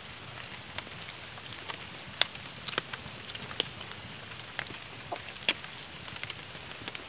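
Steady rain falling, with scattered sharp drips and ticks at irregular intervals, the loudest a couple of seconds in and again past the middle.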